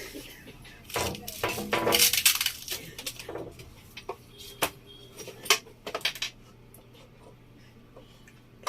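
Monitor cables and plugs handled on a desk: a dense clattering rattle about two seconds in, then a few separate sharp clicks and knocks.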